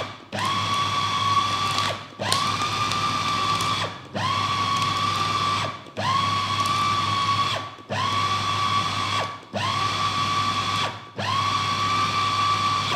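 Electric food chopper run in repeated pulses: about seven bursts of motor whine, each roughly a second and a half long with short breaks between, the pitch climbing quickly at each start as the blade spins up in thick fish paste. It is mixing ground Spanish mackerel into an even fish-ball dough.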